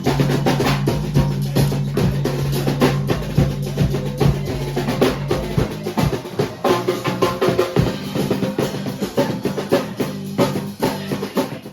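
Music with a drum-kit beat: kick drum and snare hits over steady low bass notes.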